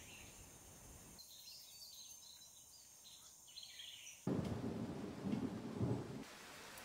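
Faint bird chirps over a quiet outdoor background, then, about four seconds in, a low rumble that starts suddenly and lasts about two seconds before cutting off.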